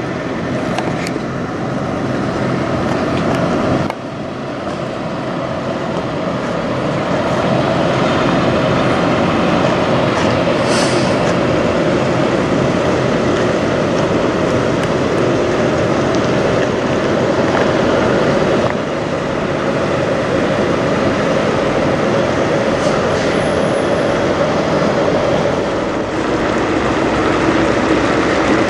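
Heavy diesel semi-truck engine idling: a steady, loud rumble that changes abruptly twice, about four seconds in and again near the middle.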